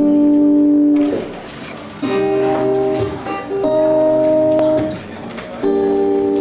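Live acoustic music: plucked guitar with long, steady held notes in phrases about a second or more long, each dropping away before the next begins.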